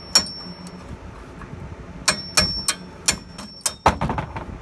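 Sharp metal-on-metal clicks and taps, some with a short ringing tone, as a steel hand tool is worked against an edger's blade spindle housing to free the shaft. One comes just after the start, then a quick run of them from about two seconds in to near the end.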